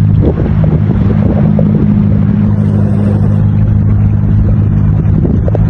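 An engine running steadily: a low, even drone over a rumble.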